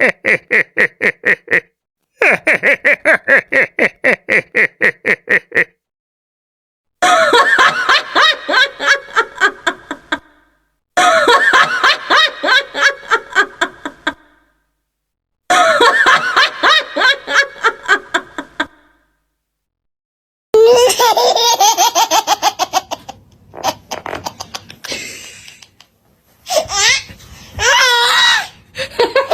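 Canned laughter sound effects played one after another: a fast, even "ha-ha-ha" laugh twice, then a longer laugh that fades out, repeated three times with short silences between, then a different, more varied laugh with rising and falling pitch for the last nine seconds.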